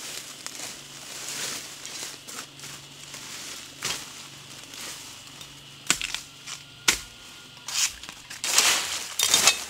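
Footsteps crunching and rustling through dry fallen bamboo leaves and ferns on a steep slope, with several sharp crackles of leaves and twigs and a longer burst of rustling near the end.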